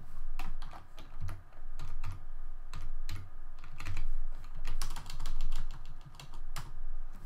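Typing on a computer keyboard: an irregular run of keystroke clicks, each with a dull thud.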